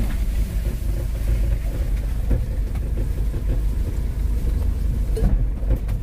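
Small truck being driven, heard from inside the cab: a steady low engine and road rumble.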